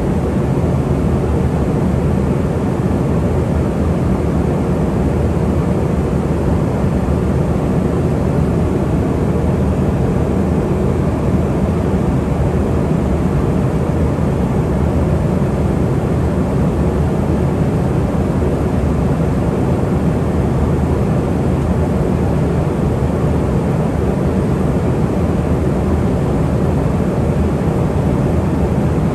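Steady, unchanging roar inside an Embraer ERJ145 jet in cruise: the rush of airflow and the hum of its Rolls-Royce AE3007 turbofans, heaviest in the low range.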